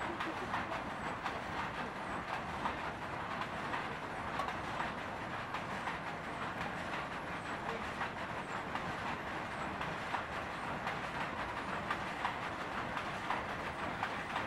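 Hot oil sizzling and crackling steadily around paniyarams frying in the moulds of a cast-iron paniyaram pan over a wood fire, a dense hiss full of small pops.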